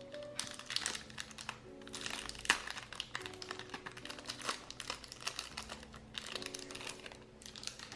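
Packaging crinkling and crackling as a small package is handled and opened by hand, a dense run of rustles and small clicks. Soft solo piano music plays underneath.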